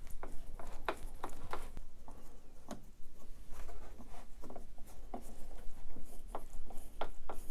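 Hand screwdriver turning screws through a plastic TV stand foot: irregular small clicks, ticks and scrapes of the tool against the screws and plastic, a few a second.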